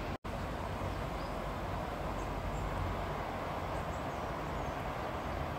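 Steady hum of distant city traffic, with a few faint bird chirps. The sound cuts out for an instant just after the start.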